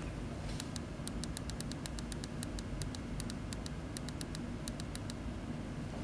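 A rapid run of small, sharp clicks, about five a second for some four seconds, from the push buttons of a homemade PIC18F4520 infrared remote being pressed over and over to switch a projector off. A steady low hum runs underneath.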